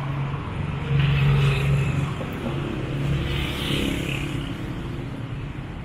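City street traffic: motor vehicle engines running close by with a steady hum, swelling louder about a second in.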